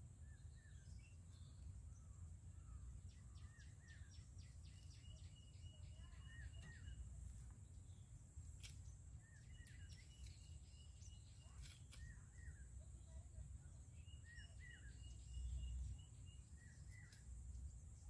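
Quiet outdoor ambience: small birds chirping faintly in short falling notes, with a quick rattling trill about three times, over a low rumble and a steady high hiss.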